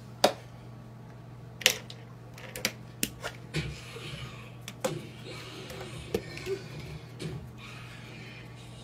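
A kitten's paws and claws tapping and clicking on an aquarium's glass front and the wooden dresser top: a series of sharp, irregular taps over a steady low hum from the aquarium.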